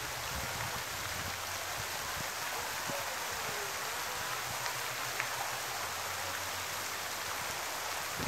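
Pond fountain's spray splashing onto the water, a steady hiss.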